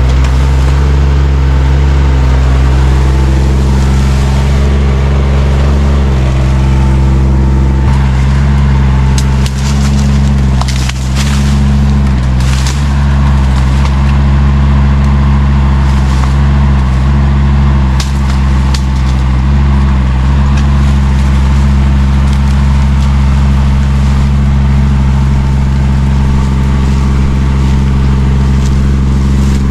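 Chinese mini excavator's engine running steadily as it works its rake through brush, its pitch shifting a little with the load. Scattered cracks and snaps of breaking vegetation, mostly in the middle of the stretch.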